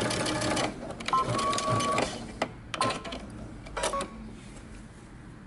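Electric sewing machine stitching fast for under a second, then stopping. The machine then gives a beep of about a second and two short beeps, with a few sharp clicks.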